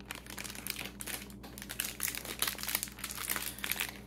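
Crinkly plastic snack packaging rustling and crackling as it is handled, in quick irregular crackles.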